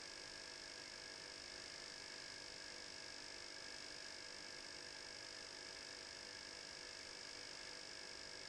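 Faint, steady electrical hum with a thin high-pitched whine above it, unchanging throughout. There are no distinct events.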